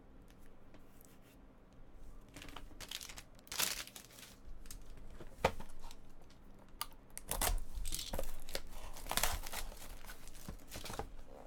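Packaging being torn open and crumpled by hand, as sealed trading-card packs and boxes are opened. Irregular rustling and tearing, with one sharp click about halfway through.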